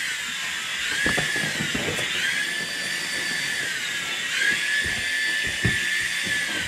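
Tiny toy helicopter's small electric rotor motor whining at a high pitch. The pitch dips and recovers a few times as the motor speed changes.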